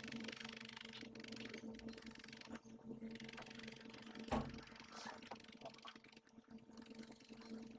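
Felting needle jabbing rapidly and repeatedly into loose wool wrapped over a firm felted core, a faint scratchy crunching, over a steady low hum. One soft thump about four seconds in.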